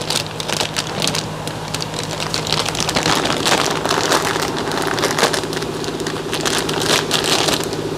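Irregular crackling and rustling as a new rear suspension link and its packaging are handled, over a steady low hum.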